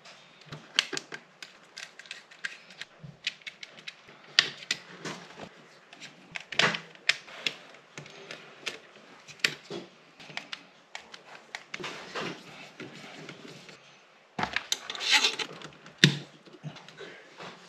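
Irregular small clicks and taps of hands and tools working on electrical wiring fittings, with a louder clattering burst near the end that finishes in a sharp knock.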